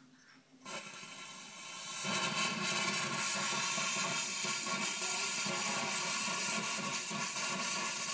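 Steam hissing out of a DeLonghi ECO310 espresso machine's steam wand after the steam knob is opened. It starts about a second in and swells to a steady, louder hiss about two seconds in.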